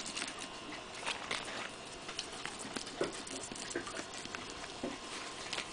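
Fillet knife cutting into a striped bass on a wooden dock: irregular soft scraping and crunching strokes as the blade works through skin and ribs, a few a second, with the odd light tap.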